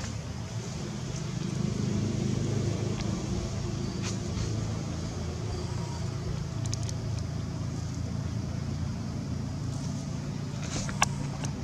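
A motor running steadily with a low hum, with a few sharp clicks, the loudest near the end.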